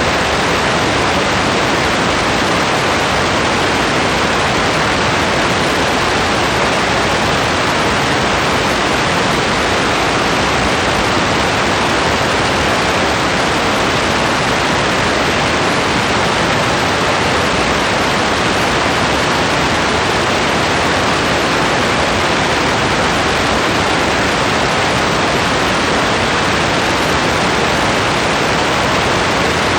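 Steady heavy rainfall, a dense even hiss with no single drops or changes standing out.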